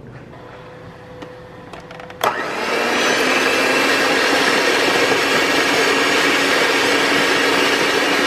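Electric mixer switched on with a click about two seconds in, then running steadily as its beaters whip raw egg whites in a plastic jug.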